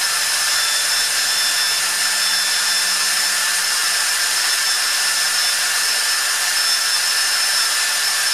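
Ryobi cordless drill running at a steady speed, spinning the shaft of a 0.75 kW water-pump induction motor that is being driven as a generator. A steady, even whine with a few constant high tones.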